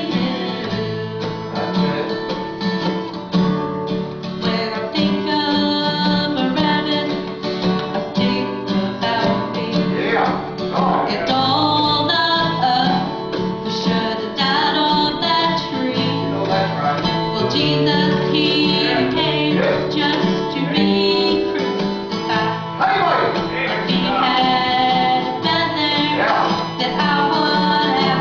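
Acoustic country gospel music led by guitar, with held melodic notes that slide between pitches in places. No words are sung, so this is most likely an instrumental break in the song.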